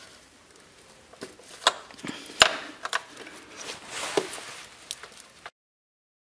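Plastic electrical connectors and wiring on a Toyota D4D diesel's SCV valves being worked loose by hand: scattered small clicks and knocks, the sharpest about two and a half seconds in. The sound cuts off suddenly near the end.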